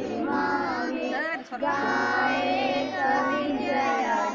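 A group of children singing together in unison, their voices held in long notes, with a brief break about one and a half seconds in.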